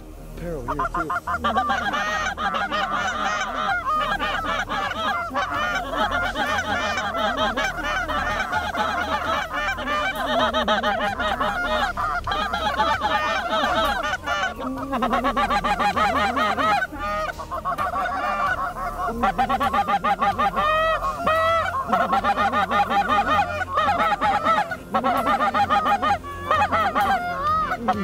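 A flock of geese honking, many calls overlapping in a steady din that starts about a second in.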